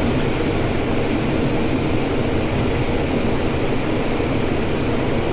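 Combine harvester's diesel engine and machinery running steadily, with a constant low drone.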